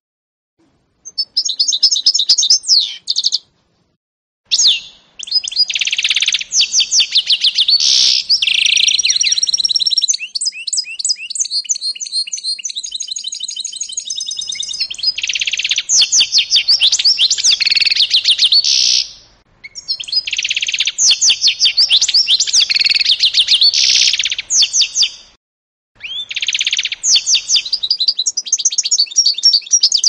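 Canary × European goldfinch mule singing: a long, high-pitched song of rapid trills and twitters in phrases of several seconds, broken by a few brief pauses.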